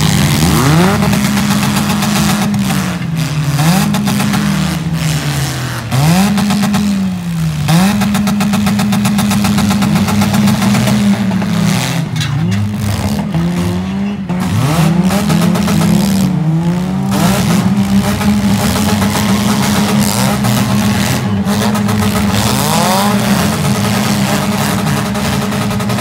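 Several four-cylinder demolition derby cars revving hard, their engines rising and falling in pitch over and over and overlapping as they push and ram into each other.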